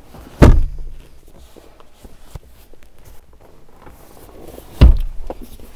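Two heavy thumps about four seconds apart, from the rear seat parts of a pickup's cab being folded and set down by hand.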